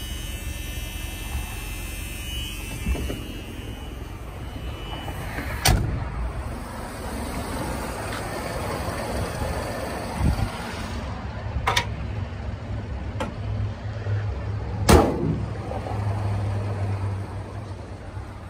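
1978 Ford Mustang II engine idling steadily, still cold and on its high fast idle, with a handful of sharp knocks over it, the loudest about fifteen seconds in.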